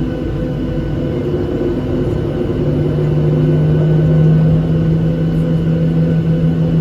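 Boeing 737-700 CFM56-7B jet engines droning in the cabin, slowly growing louder, with a strong low hum setting in after a few seconds as the engines spool up for departure.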